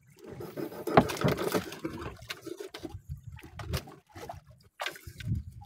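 A knife cutting and tapping on a wooden plank while fish is cleaned, with irregular knocks and scraping; the sharpest knock comes about a second in.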